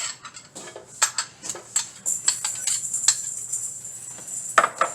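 Background music with jingling, tambourine-like percussion, and a single sharp knock near the end.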